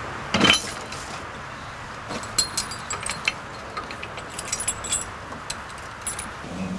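Metal clanks and clinks of a tramcar's bar coupling, its pin and chain being handled by hand: one loud clank about half a second in, then a run of small rattling clinks.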